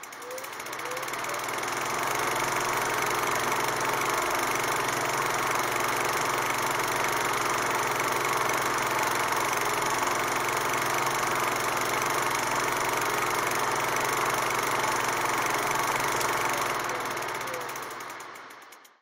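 Steady mechanical running and rattling noise with no music, fading in over the first two seconds and fading out near the end.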